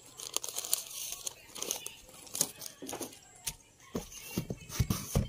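Paper and cardboard being handled: crinkling and rustling of paper sheets, then a few dull thumps near the end as the cardboard box is gripped and moved.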